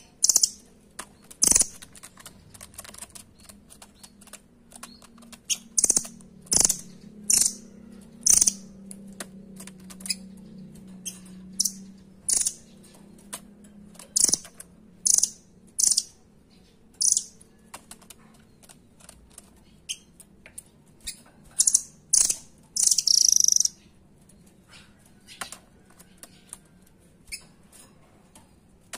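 Blue nuthatch (rambatan doraemon) calling: a string of short, very high, sharp notes at irregular intervals of about a second, with one longer note about two-thirds of the way through. Light clicks come in between.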